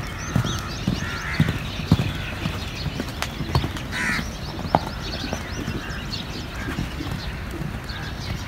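Hoofbeats of a ridden horse on a sand arena, dull thuds that are strongest in the first half, with small birds chirping and a crow cawing once about four seconds in.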